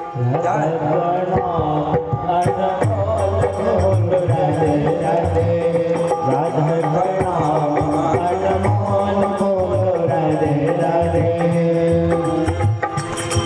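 Instrumental interlude of a Hindi devotional bhajan: a pitched melody line over a steady hand-drum rhythm, with light metallic ticks.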